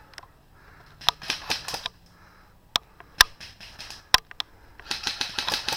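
Airsoft guns firing: a quick burst of shots about a second in, a few single sharp shots in the middle, and a longer rapid burst near the end.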